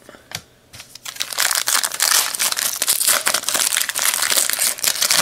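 Foil wrapper of a Donruss baseball card pack crinkling as it is torn open and crumpled, a dense crackle starting about a second in.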